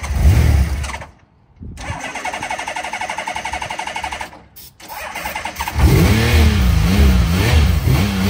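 Honda CBX's six-cylinder engine being started on starter fluid after years of sitting: a short burst of firing, then steady fast cranking, and about six seconds in it catches and runs, the revs rising and falling as the throttle is worked.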